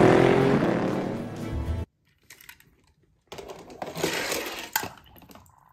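Film soundtrack music that cuts off abruptly about two seconds in. After a moment of silence, small die-cast toy cars clink and clatter as they are picked up and moved about a plastic track playset, with one sharp click near the end.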